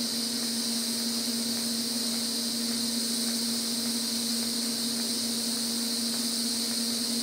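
TIG welding arc on a stainless steel turbo manifold elbow, burning continuously: a steady hiss with a steady buzzing hum.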